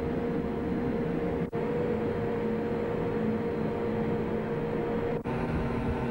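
Steady drone of a ship's machinery with a low, even hum, broken by two very short dropouts, one about a second and a half in and one near the end.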